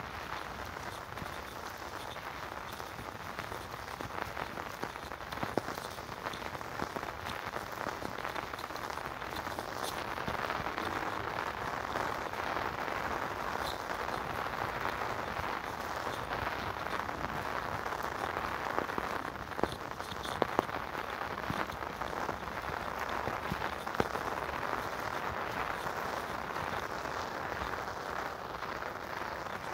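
Steady rain falling on wet pavement and leaves, a continuous even patter that grows a little louder about a third of the way in, with a few sharp taps now and then.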